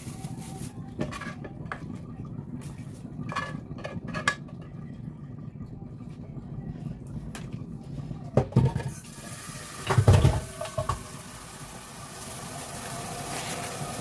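Thin plastic bag crinkling and rustling in the hands as a ball of fufu is wrapped in it. There are two louder thumps about eight and ten seconds in.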